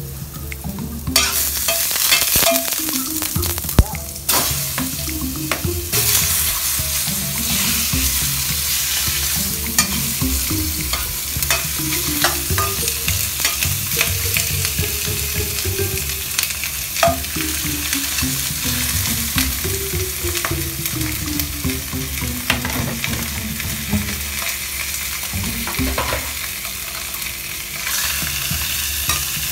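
Fish pieces sizzling as they fry with ginger in a hot steel wok; the sizzle starts about a second in and holds steady. A metal spatula scrapes and clicks against the wok as the fish is turned.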